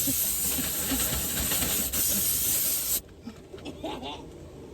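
Vacuum cleaner running with a steady hiss of rushing air, switched off suddenly about three seconds in.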